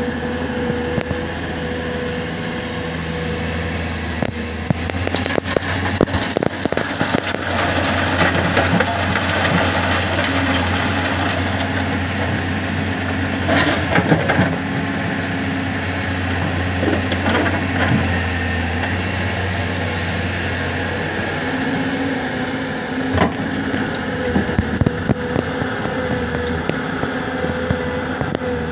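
Excavator's diesel engine running steadily while rock crunches and clatters, most thickly from about five to fifteen seconds in and again near the end.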